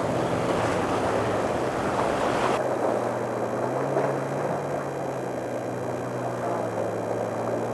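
Outboard engines of a center-console police boat running at speed, a steady drone, with the rush of water from its hull and wake. The high hiss drops away suddenly about two and a half seconds in, leaving mostly the engine hum.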